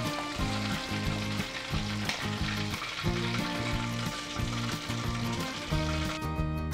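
Chicken leg pieces deep-frying in hot oil, with a steady sizzle.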